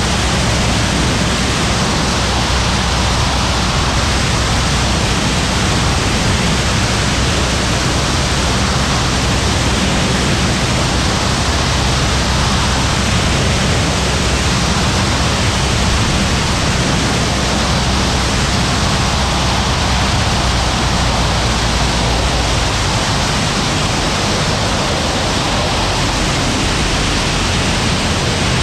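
Loud, steady wind rush over a wing-mounted camera on a Bücker Jungmann biplane in flight, with the engine's low drone underneath. The high hiss eases a little near the end.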